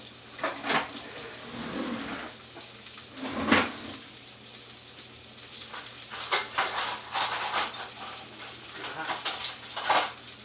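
Metal kitchen utensils and pans clattering in several sharp knocks, over chicken frying in a hot pan.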